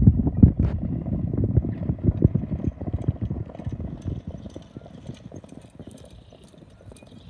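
Hoofbeats of two harness horses pulling sulkies at speed on a dirt track: a rapid drumming that fades steadily as they move away.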